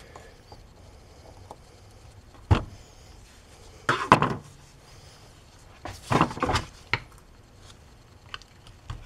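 Snap ring pliers and a screwdriver clicking and scraping against a snap ring inside a wheel bearing carrier while the ring is pried out: scattered short metallic knocks, one sharp one about two and a half seconds in, then bunches of clicks around four and six seconds in, and a few light ticks near the end.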